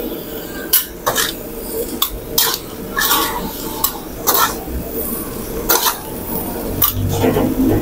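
Metal ladle and metal spatula scraping and clinking against a steel wok as fried rice is stirred and tossed, in irregular knocks roughly every half second to second, over a steady low hum.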